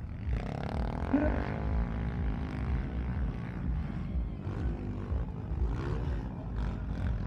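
Motocross dirt bikes racing on the track, their engines revving up and down as they pass.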